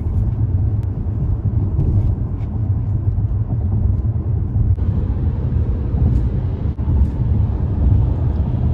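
Steady low rumble of a car's road and engine noise heard from inside the cabin while driving at highway speed; a brighter hiss joins about halfway through.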